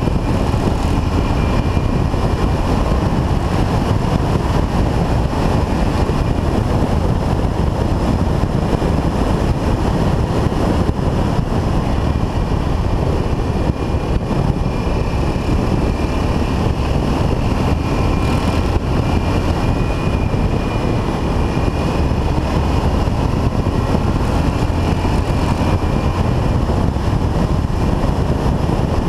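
Yamaha XT500's single-cylinder four-stroke engine running steadily while the motorcycle rides along, mixed with wind rushing over the camera microphone.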